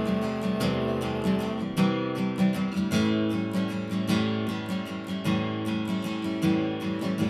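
Acoustic guitar strummed in a steady rhythm, an instrumental passage of a song with no voice.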